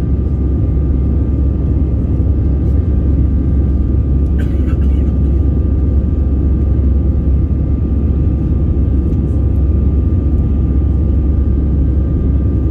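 Jet airliner cabin noise during the climb after take-off: the engines and airflow make a steady, loud rumble heard from a window seat over the wing, with a thin steady whine from the engines above it.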